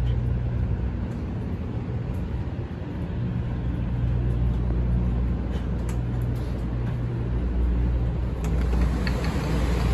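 Steady low rumble and hum of a 500 series Shinkansen heard inside a passenger car, with a few faint ticks.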